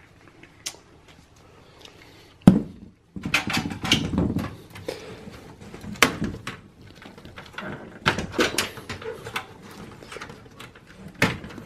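Gloved hands handling cables and plastic clips inside a desktop computer case, working loose the SATA cables: a sharp knock about two and a half seconds in, then busy rustling and clicking.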